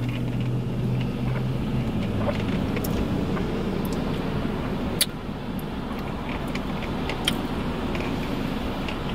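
Steady low rumble inside a parked car in the rain, with a low steady hum for the first couple of seconds. Occasional sips of an iced drink through a straw and a few small clicks come on top.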